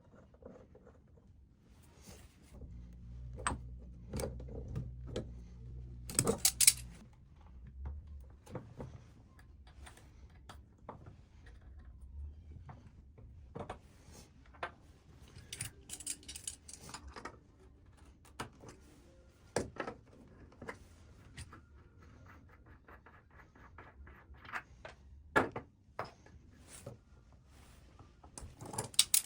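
Irregular clicks, knocks and light metallic clinks of small hard objects being handled, with a low hum for a few seconds near the start.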